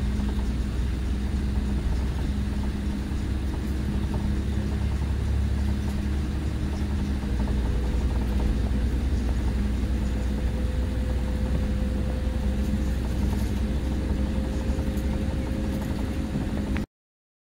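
Mercedes-Benz O-500RSD coach's rear-mounted diesel engine running steadily, with a faint tone that slowly rises in pitch through the second half. The sound cuts off suddenly near the end.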